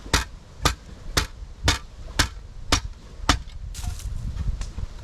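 Improvised hammer striking a piece of metal set against a tin of stewed meat to punch the can open. There are about two sharp metallic knocks a second, and the blows turn lighter after about three and a half seconds.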